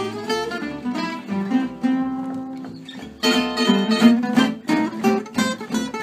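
A large ensemble of oval-soundhole gypsy jazz guitars plays a swing tune together, picked melody notes over strummed chords, with a double bass underneath. About three seconds in, the playing gets louder and fuller.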